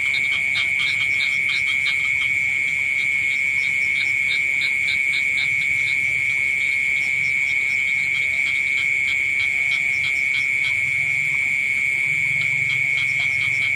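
A night rice-field chorus of insects and frogs. A steady, unbroken high trill of mole crickets runs underneath, and bouts of rapid pulsed calls from frogs and crickets come and go over it.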